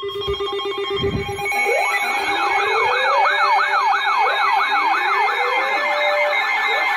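Electronic siren-style alert tone over a broadcast alert: steady tones at first, then about two seconds in a rapid repeating wail of falling sweeps, about four a second, over a steady tone.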